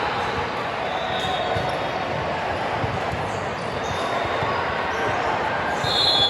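Busy gymnasium during an indoor team match: balls thud on the court, high shoe squeaks come several times with a louder one near the end, and voices chatter in a steady murmur, all echoing in the large hall.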